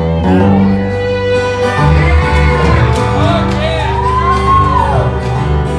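Instrumental music starting abruptly: steady bass notes under a melody line that slides up and down in pitch.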